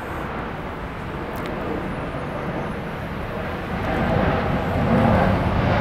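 Airplane passing over, its engine a steady drone that grows louder from about four seconds in.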